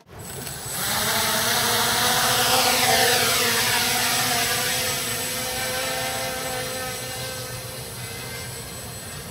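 Small tricopter flying: three 1200kV brushless motors spinning 8x4 propellers, giving a loud steady buzzing whine. It swells within the first second and then slowly fades.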